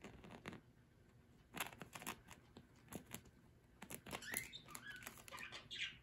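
Budgerigar nibbling and scratching at a fabric chair cover with its beak and claws: faint bursts of scratchy clicks, with soft chirps mixed in during the last two seconds.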